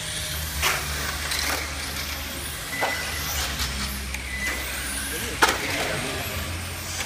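Radio-controlled model cars racing, their motors making high rising and falling sounds over a steady low hum. A few sharp knocks come through, the loudest about five and a half seconds in.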